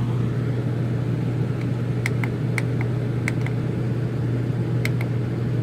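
RV rooftop air conditioner running with a steady low hum and fan rush, blowing hot air instead of cold: the unit is malfunctioning. A few light clicks sound in the middle and near the end.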